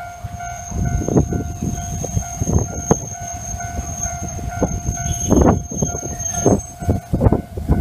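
Hankai Tramway tram rumbling through a level crossing, its wheels knocking irregularly over the rail joints. A level-crossing warning bell sounds steadily over it until near the end.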